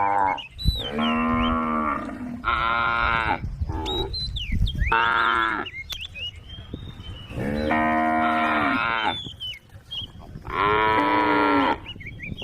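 Cows mooing over and over, one call after another, each about a second long, with a longer pause around the middle.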